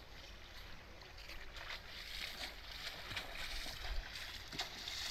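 Faint splashing and sloshing of a person swimming in calm sea water, getting a little louder toward the end.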